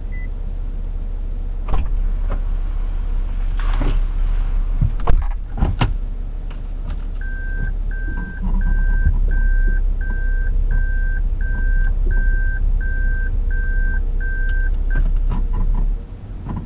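Toyota Crown (S180 'Zero Crown') on the move, with a steady low rumble and drone that the owner suspects comes from a failing left-rear hub bearing. A few sharp knocks come in the first seconds. From about seven seconds in, a short electronic beep repeats roughly every 0.7 seconds, about a dozen times.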